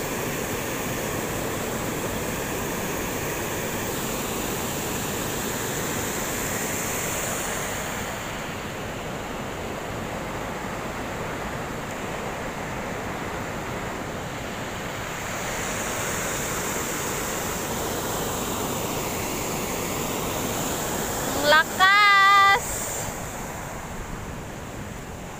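Brown floodwater rushing over a road crossing, a steady rushing noise with wind buffeting the microphone. About three seconds before the end a brief, loud, high-pitched wavering cry cuts through.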